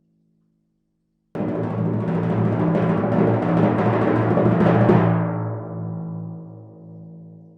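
A timpani roll starting suddenly about a second in, swelling louder for about three and a half seconds, then stopping and leaving the drum to ring and fade.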